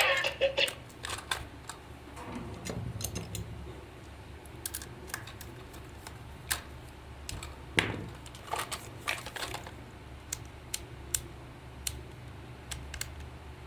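Scattered light clicks and taps of small tools and plastic toy parts being handled, a little busier at the start and with one sharper knock about eight seconds in, over a low steady hum.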